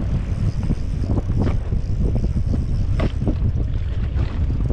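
Boat running at speed across open water, with heavy wind rumble on the microphone and irregular knocks and splashes of the hull on the waves.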